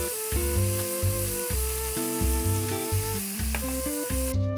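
Minced beef and pork with onion sizzling in a hot stainless steel sauté pan as tomato paste is stirred in, over background music with a steady bass beat. The sizzle cuts off suddenly near the end while the music carries on.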